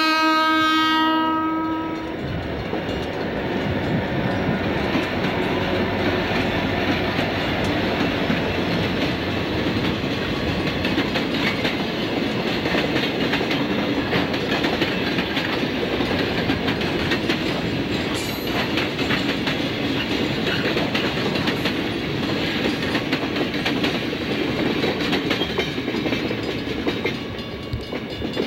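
Conrail diesel locomotive's air horn sounding, its blast ending about a second in, then a freight train of boxcars rolling steadily past, wheels clacking over the rail joints. A brief high squeal is heard about two-thirds of the way through.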